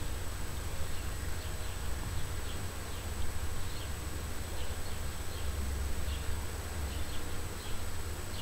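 A low steady hum with faint, short high chirps scattered through it.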